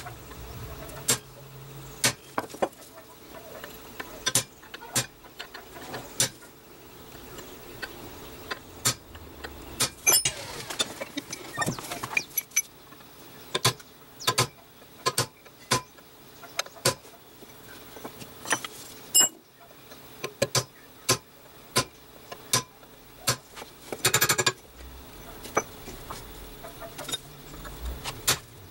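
Hammer blows on a piece of spring steel, struck singly and irregularly about one or two a second, each with a brief metallic ring. There is a quick flurry of blows about three-quarters of the way through.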